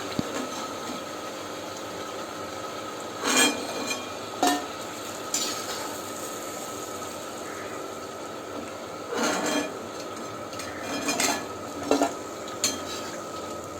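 Thattai frying in hot oil with a steady sizzle, while a metal ladle clinks against the pan about six times as the crackers are turned and lifted.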